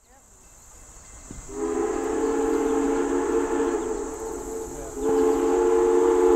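Steam locomotive's whistle blowing, several notes sounded together as a chord: one long blast beginning about a second and a half in, a brief break, then a second, louder blast from about five seconds in.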